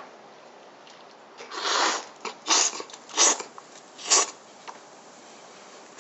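Instant dandan noodles being slurped, four loud slurps about a second apart, the first the longest.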